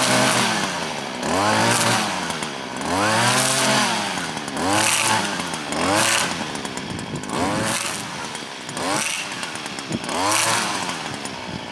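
Stihl gas string trimmer cutting tall weeds, its engine revving up and dropping back again and again, about every second and a half.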